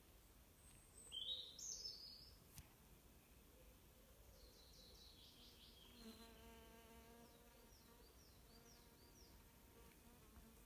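Small birds calling in woodland, with sharp high chirps about a second in and a quick falling trill a few seconds later. From about halfway through, a flying insect buzzes steadily close by while more short bird notes repeat.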